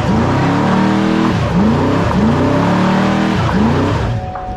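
Car doing a burnout: the engine revs up and down again and again while the rear tyres spin and squeal on the pavement. The revving and tyre noise drop away about four seconds in.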